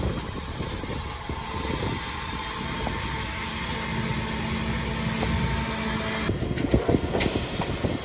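Fendt tractor pulling a Fendt Rotana combination round baler-wrapper through a grass swath, the tractor engine running steadily under the baler's working noise. From about six seconds in, close to the baler, come louder irregular knocks and clatter as its tailgate opens and a bale comes out.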